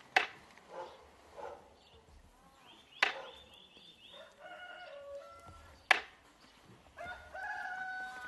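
Three sharp knocks about three seconds apart, with faint drawn-out pitched calls between them.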